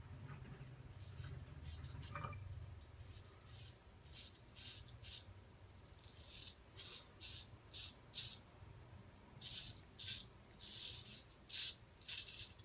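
Vintage Henckels 415 straight razor scraping through lathered stubble in short strokes, about two a second, each a brief rasp. The edge was freshly home-honed and the shaver feels it could have been a little sharper.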